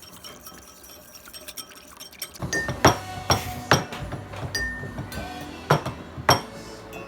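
A spoon clinking against a glass in a handful of sharp, ringing clinks starting a couple of seconds in, as a cornstarch slurry is stirred to thicken the sauce.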